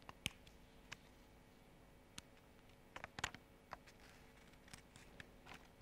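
Near silence: faint, scattered ticks and rustles of paper being folded and creased by hand, over a low steady hum.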